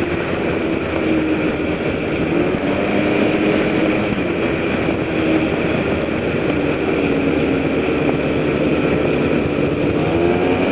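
110cc PGO/Genuine Rattler scooter engine running at road speed, mixed with steady wind and road noise on the microphone. The engine note wavers and rises near the end as it speeds up.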